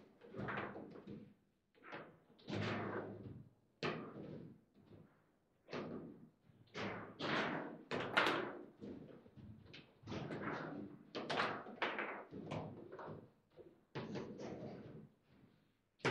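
Foosball table in play: the ball and rods knocking and thudding against the figures and the table in irregular sharp strikes, roughly one or two a second, each ringing out briefly.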